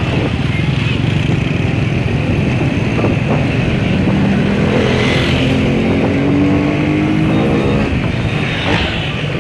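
Motor vehicle engine and road noise on the move, steady and loud, with an engine rising in pitch as it speeds up from about four seconds in until near the end.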